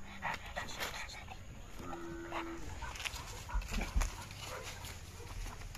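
Red-nose pit bull panting in quick, even breaths, with a brief steady pitched call about two seconds in.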